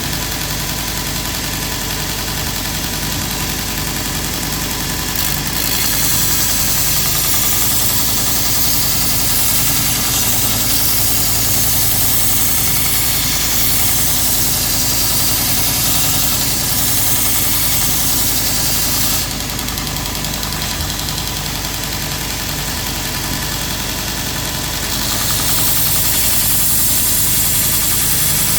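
Grizzly 2x42 belt grinder running with a steady motor hum while a steel lopper blade is ground on the abrasive belt. A high grinding hiss swells about five seconds in, eases off for a while past the middle, and comes back stronger near the end.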